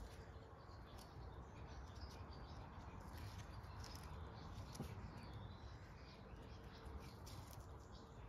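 Faint outdoor birdsong: scattered short chirps and tweets over a low, steady background rumble.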